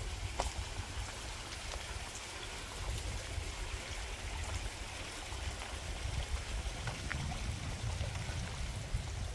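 Steady rushing of water running in a village stream, with a low, fluctuating rumble underneath.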